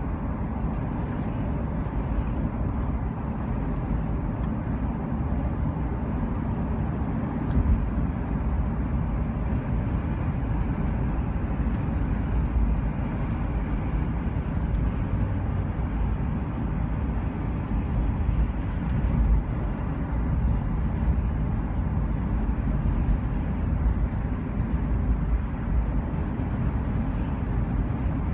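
Steady rumble of a moving vehicle, road and engine noise with no let-up.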